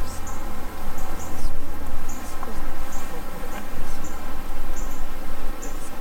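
Honey bees buzzing around an opened Langstroth hive. A short high chirp repeats a little more than once a second over the buzz.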